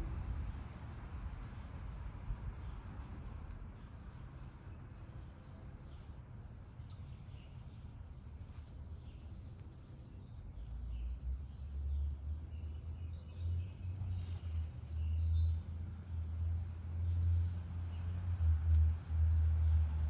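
Songbirds chirping and singing, many quick high notes throughout. About halfway in, a low rumble sets in and grows louder, becoming the loudest sound.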